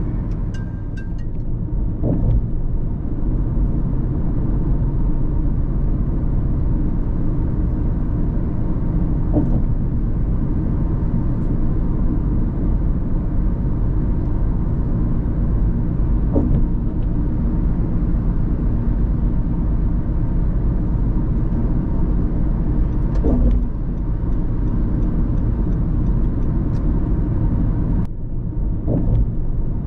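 Car driving on a road: steady low rumble of engine and tyre noise.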